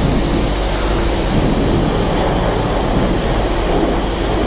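Self-service wash pressure lance spraying hot soapy water onto a motorcycle: a steady, loud hiss of the jet with a faint pump hum beneath.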